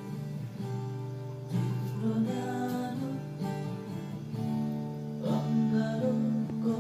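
Acoustic guitar music, strummed chords ringing on, with fresh strums about a second and a half in and again near five seconds.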